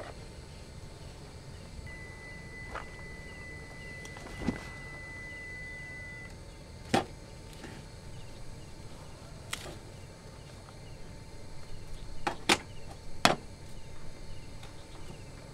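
Stainless steel steamer pot and lid being handled, giving a few separate sharp clinks and knocks. Near the end comes a quick run of small crackles as a wrapped food parcel is handled and set into the steamer basket.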